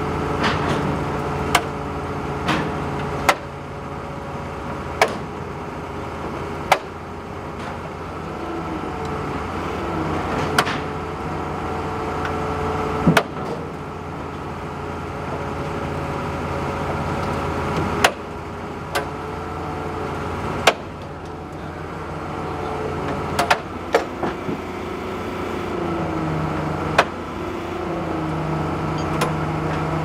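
Heavy diesel engine of a mobile crane running steadily under load as it hoists an overturned concrete pump truck, its pitch stepping up about 25 seconds in. A string of sharp clicks or knocks at irregular intervals cuts through it.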